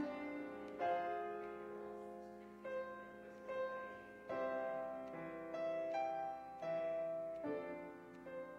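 Grand piano played solo: slow chords struck about once a second, each ringing on and fading before the next.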